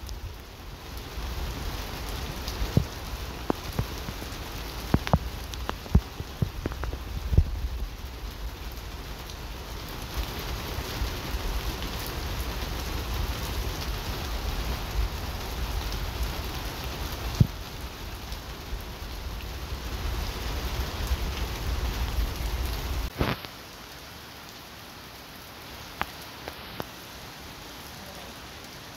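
Heavy rain falling steadily, with scattered sharp close taps. A low rumble runs under it and stops suddenly a few seconds before the end, leaving only the quieter hiss of rain.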